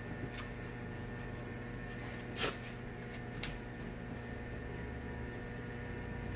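Steady electrical hum, with a few light clicks and one short rustle about two and a half seconds in as a small dog on a leash noses along a leather couch.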